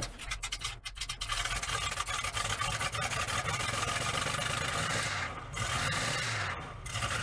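Ford 460 V8 idling after a cold start, with a loud, gritty rasping grind from the front of the engine that briefly drops out twice near the end. The owner takes it for a bad water pump rather than a belt.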